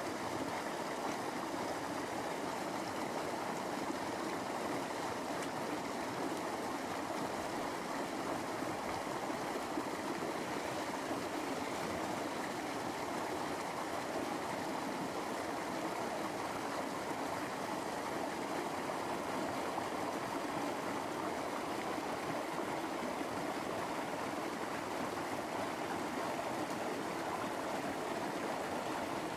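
Shallow river water flowing steadily.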